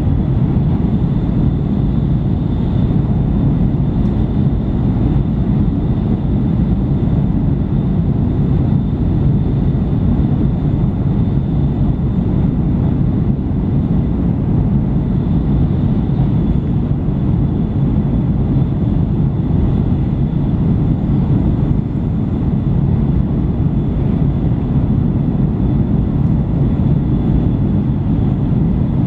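Cabin noise of an N700-series Shinkansen running at high speed: a steady, unbroken low rumble with a faint steady high tone above it.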